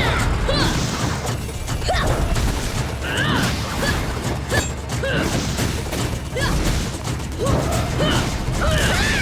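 Dubbed cartoon fight sound effects, with repeated crashes and booms over background music.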